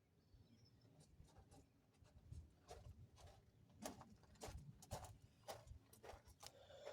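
Near silence, with faint, irregular light clicks and taps starting about two seconds in.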